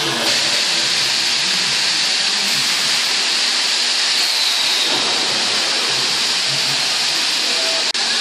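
Steady, loud hiss of the robot's vacuum suction-cup gripper drawing air as it grips a flat cardboard octabin blank, dropping out for an instant near the end.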